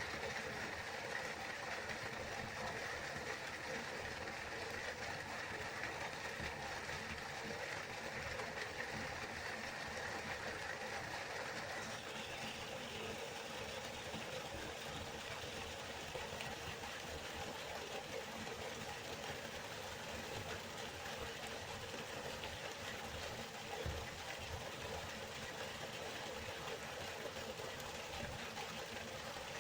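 A river flowing: a steady rush of running water, its tone shifting slightly about twelve seconds in.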